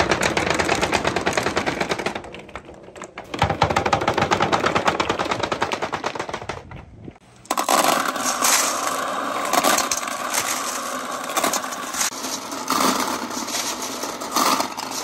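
A stream of balls rolling down a perforated wooden board, a dense rapid clatter in two runs with a short pause between them. From about halfway, glass marbles rolling round the circular track of a plastic bucket, a continuous rattle with a ringing tone.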